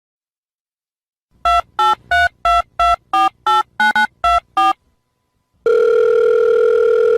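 Telephone keypad tones: about ten short two-note beeps, roughly three a second, as a number is dialled. After a short pause comes one long steady line tone lasting about two seconds.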